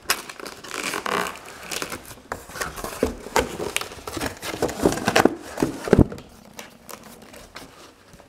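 Cardboard packaging and plastic shrink wrap being handled: crinkling and scraping with scattered clicks and knocks, the loudest a dull thump about six seconds in.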